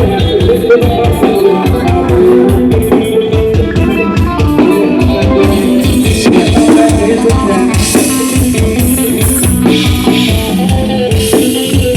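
Loud Thai procession music from a rot hae sound-truck system: a fast, steady drum beat with pitched instruments, and bright cymbal washes about six, eight and ten seconds in.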